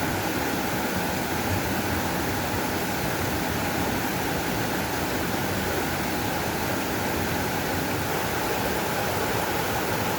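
Flowing water rushing steadily at an even level, with no pauses or separate events.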